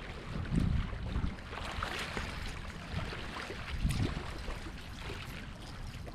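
Wind gusting across the microphone in low rumbling swells over a steady rush of choppy water.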